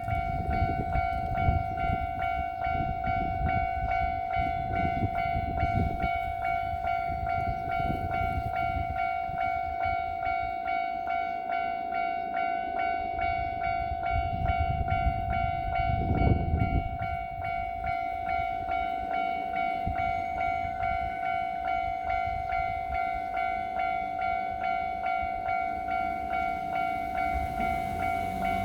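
Japanese level-crossing warning bell ringing in a steady repeated tone throughout, while a Kintetsu Nagoya Line train passes over the crossing with a low rumble and repeated clacking of wheels over rail joints. The train noise swells once more and then dies down about two-thirds of the way through, leaving the bell ringing on its own.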